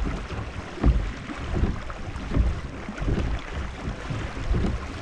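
A kayak being propelled through water with a steady stroke: regular low thuds about every three-quarters of a second over a rush of wind on the microphone.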